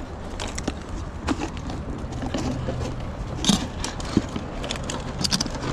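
Knocks, clicks and rattles of an aluminium folding trolley and a bucket being handled, over a steady low rumble. The sharpest knocks come about three and a half seconds in and again just after four seconds.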